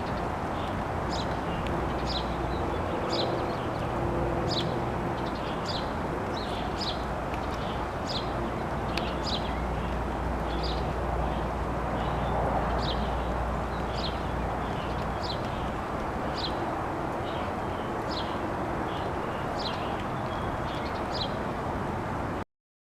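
A songbird chirping over and over, short high downward-slurred notes about once a second, over a steady low rumble of distant traffic.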